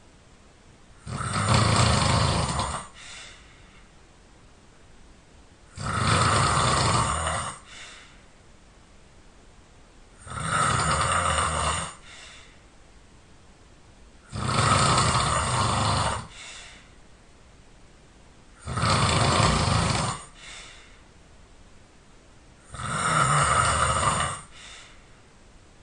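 A person snoring loudly: six long snores in a steady rhythm about four seconds apart, each followed by a brief, fainter sound.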